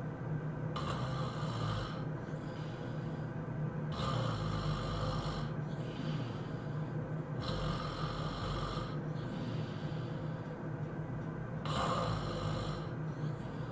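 A sleeping person snoring heavily, four loud snores about three and a half seconds apart with softer breaths between them, over a steady low hum.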